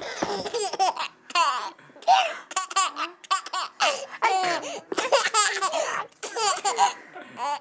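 A baby of about seven months laughing in a run of short, high-pitched bursts, on and off.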